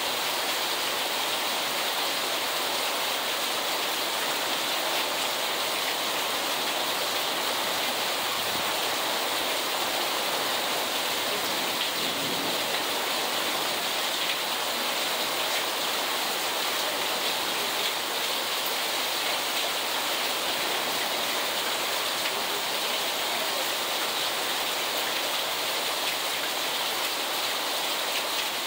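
Heavy rain pouring steadily onto a waterlogged yard and street, an even hiss that doesn't let up.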